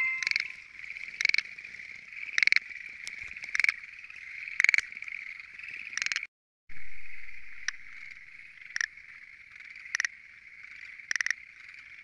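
A frog chorus: a steady high trilling from many frogs, crossed by short loud calls about once a second. Near the end a Schlegel's green tree frog calls close by, its throat sac swelling. The sound drops out for a moment a little after halfway.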